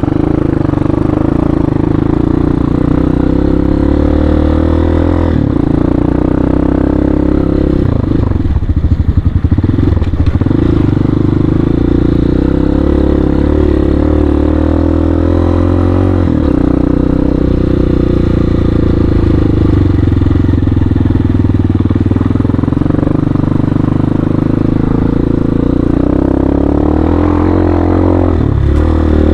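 Hawk 250's 250cc single-cylinder engine running under way on a trail ride. Its note holds steady, dipping and picking back up a few times, most clearly about eight to ten seconds in.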